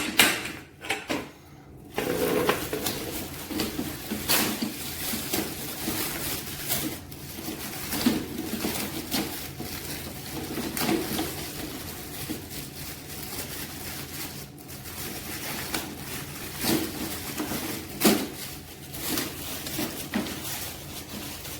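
Handling noise from fitting the mower's handle sections together: continual scraping and rustling, broken by scattered clicks and knocks.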